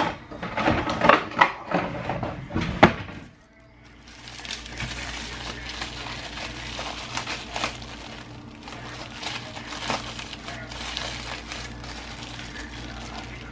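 Knocks and clatter of kitchen items handled on a counter, then, after a break about three and a half seconds in, a plastic produce bag crinkling as a head of cauliflower is handled, over a steady low hum.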